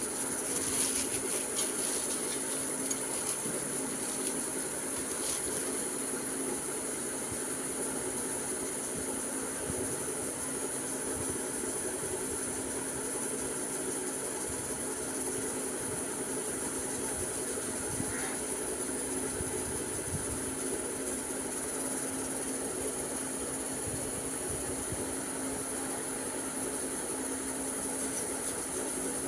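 Steady electronic hiss with a steady low hum underneath, and a few faint crackles in the first few seconds.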